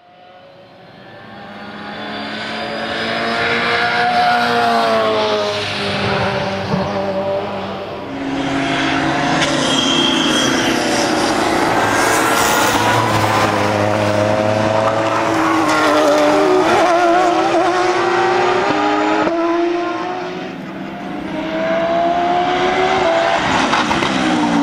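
GT race car engines at high revs passing one after another, their pitch rising and falling as they accelerate and go by. The sound fades in over the first few seconds and dips briefly twice between cars.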